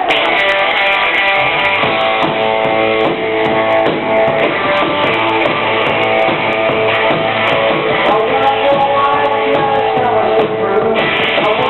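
Live rock band playing an instrumental passage with strummed electric guitar to the fore.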